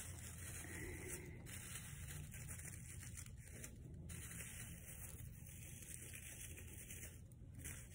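Faint rustling of artificial Christmas tree branches being handled, over a low steady hiss.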